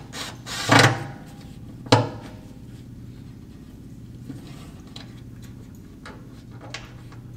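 Metal clunks and clicks of hand tools as a new fuel sending unit is seated and screwed down on a truck's fuel tank: two sharp knocks within the first two seconds, then a few light ticks over a steady low hum.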